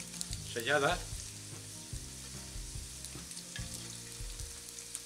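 Breaded potato slices, coated in flour, egg and breadcrumbs, frying in shallow oil in a pan with a steady sizzle. A few light clicks of metal tongs come as the slices are turned.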